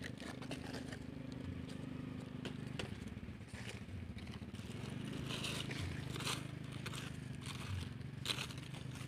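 Dry fallen leaves crackling and scraping as leaf litter is pushed and raked through by hand, with a few sharper crackles, over a steady low hum.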